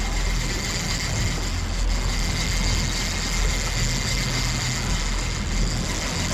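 A boat's motor running steadily under way while trolling, with a continuous wash of wind and water noise.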